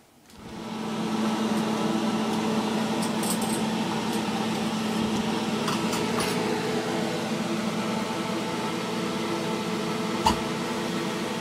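Steady hum of a fume hood exhaust fan, with a low tone running through it. A single sharp click about ten seconds in.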